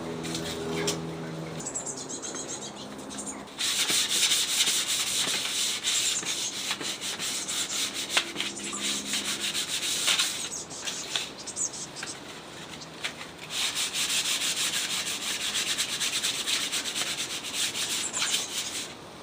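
Sandpaper rubbing over dry, weathered teak wood in rapid scratchy strokes as the bench is hand-sanded. It starts a few seconds in, eases off briefly twice, then carries on.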